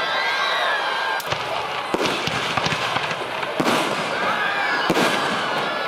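Aerial fireworks going off in a show: several sharp bangs a second or so apart over the continuous crackle and rumble of the display.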